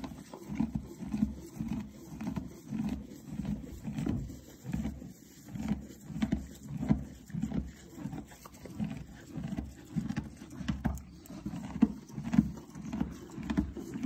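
Horse chewing barley mixed into hay, a steady rhythmic crunching of about two chews a second.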